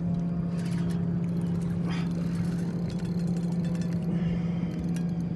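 Boat engine running steadily, a constant low hum, with a few faint clicks.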